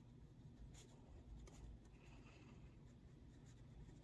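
Faint scratching of a pen writing on the lined paper of a spiral-bound notebook.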